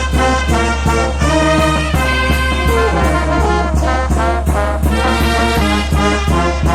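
A Peruvian brass band playing a tune, the horns carrying the melody over a steady beat.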